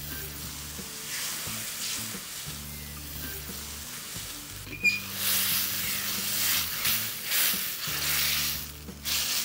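Tomato purée sizzling in hot butter and onions in a steel kadai while being stirred with a wooden spatula, the hiss swelling louder in waves through the second half. One sharp knock near the middle.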